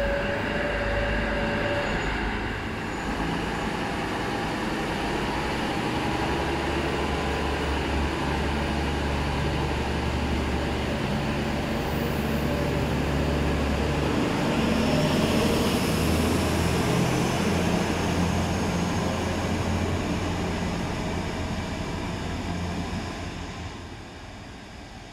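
AKN diesel multiple unit moving through the station, with a steady low engine rumble and a faint whine. It is loudest about two-thirds of the way through and fades away near the end.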